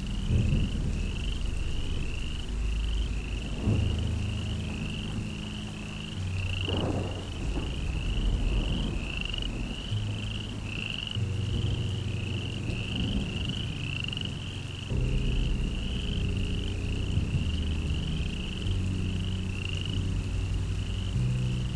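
Rhythmic animal chirping, about two short rising chirps a second, over a low drone whose tones shift every few seconds.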